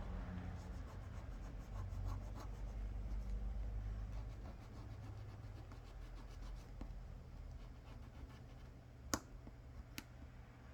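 Faint scratching and rubbing of a spudger pressing adhesive strips down around the edges of an Apple Watch frame, with two sharp clicks near the end. A steady low hum runs underneath.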